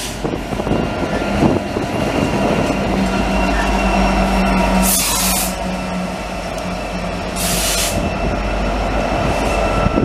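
A CN diesel locomotive, an EMD SD70M-2 at the rear of a double-stack intermodal train, passes close by, its engine running with a steady low drone over the rumble of the wheels on the rails. Two short bursts of loud hiss come about halfway through and again a couple of seconds later.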